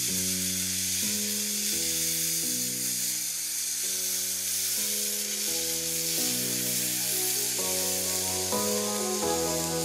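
A red-hot steel knife blade sizzling with a steady hiss as it melts into a frozen chocolate-coated ice cream bar, under electronic background music.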